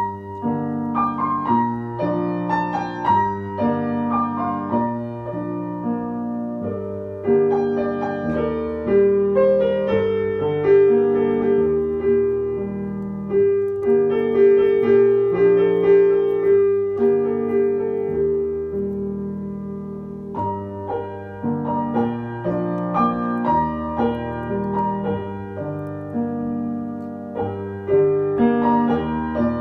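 Background solo piano music: a melody of single notes over held chords, playing throughout.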